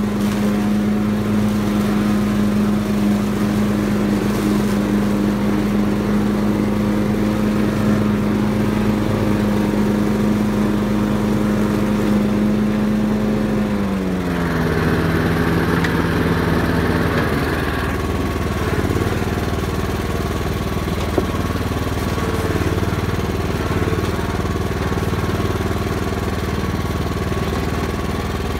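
Ride-on tractor lawnmower engine running steadily while mowing. About halfway through, its pitch drops and settles lower for the rest of the time.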